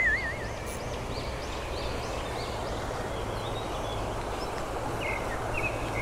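Outdoor ambience: a steady rushing noise, with a bird singing a quick run of short repeated notes in the first half and a few short chirps near the end.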